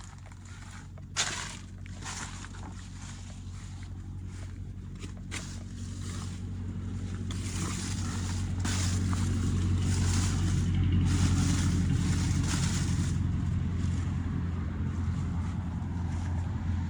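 An engine running at a steady low pitch, growing louder over the first ten seconds or so. Over it come crackling and rustling sounds, with a sharp snap about a second in.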